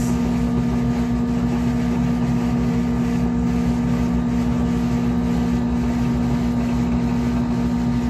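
Steady machine hum with a low tone and a rumble beneath it, unchanging throughout.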